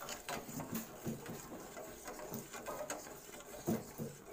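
Steel spoon stirring tea in a steel saucepan, scraping and clinking against the pan's sides and bottom in a quick, irregular run of clicks.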